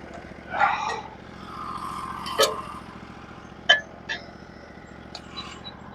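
Portable sawmill's engine idling steadily, with a scuffing noise just under a second in and several sharp knocks and clanks, the loudest about two and a half seconds in.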